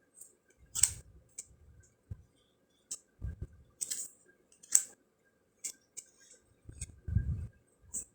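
Round fortune cards being handled during a flip-through: a string of light clicks and snaps of card stock, with a few soft low thumps.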